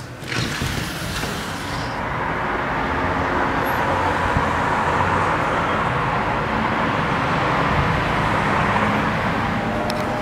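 Steady road-traffic noise from city streets below, with a brief rushing noise in the first two seconds.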